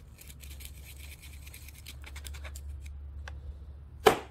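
A metal pick scraping packed dirt out of a chainsaw carburetor's fuel inlet, in a run of faint scratches; this dirt is what plugs the inlet screen and makes the saw run lean and bog down. Near the end, sharp knocks as the carburetor is rapped on the workbench.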